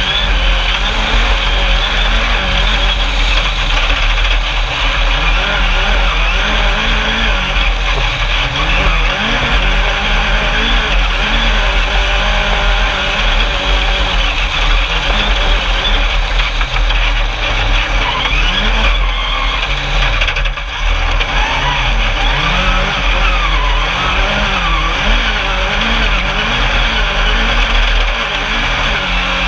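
Engine of an Alumicraft single-seat Class 10 off-road race buggy heard on board at racing pace, its pitch rising and falling again and again as the throttle is worked. It runs over a constant rush of wind and tyre noise, and dips briefly about two-thirds of the way through.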